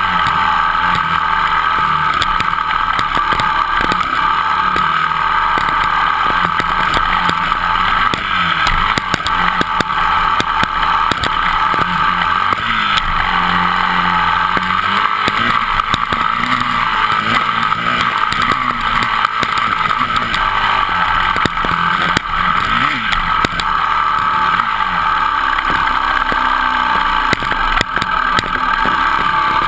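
Dirt bike engine running at trail speed, its revs rising and falling with the throttle, with many short knocks and rattles from the bike bouncing over the rough track.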